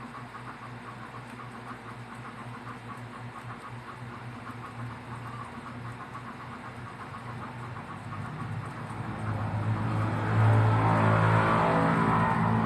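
Rapid computer keyboard typing, a quick run of light key clicks over a low steady hum. From about eight seconds in, a louder rumbling sound with a steady pitch swells up and drowns out the typing near the end.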